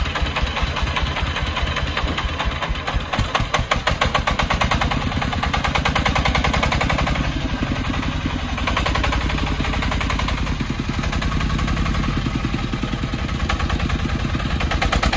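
Single-cylinder diesel engine of a loaded three-wheeled công nông dump truck running with a fast, even beat.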